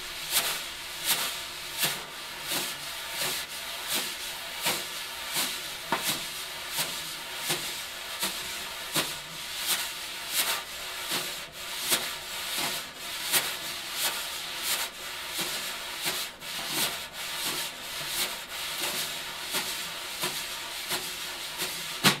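Two wire brushes swept in circles on a coated snare drumhead, a continuous swishing with a soft accent roughly every three quarters of a second. It closes on one louder, sharper stroke at the very end.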